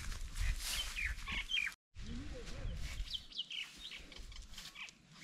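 Small birds chirping repeatedly in short high chirps, with a brief complete dropout just before two seconds in.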